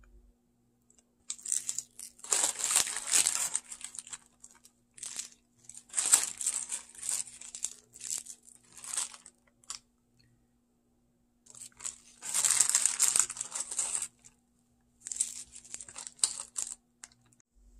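Plastic zip-lock bag and disposable plastic gloves crinkling and rustling in several bursts with short pauses, as soy-pickled peppers are lifted out of the bag into a bowl.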